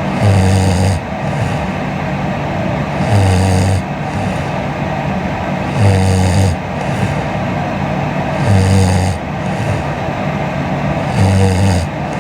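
A woman snoring in her sleep: five snores, each under a second long, coming regularly about every two and a half to three seconds with a low buzz, over a steady background hiss.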